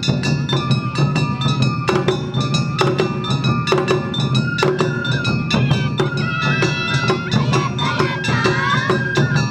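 Awa Odori festival music played live: a bamboo flute melody held and stepping between notes, with sliding ornaments near the end, over a quick, steady beat of taiko drums and a struck kane hand gong.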